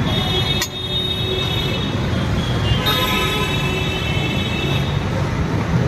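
Vehicle horn blown in two long blasts, each about two seconds, over steady road traffic noise, with a sharp click between them.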